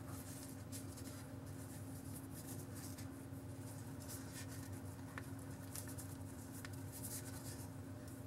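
Faint rustling and scratching of a braided lanyard cord being pulled through its loop and handled against a rubbery phone case, with a few small clicks, over a steady low hum.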